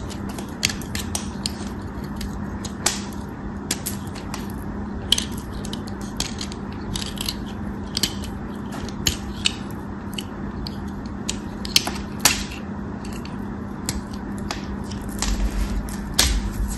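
Craft knife blade carving a small starch-coated soap cube, giving a run of irregular crisp crackles and snaps as brittle flakes break off. Near the end the crunching gets louder and heavier.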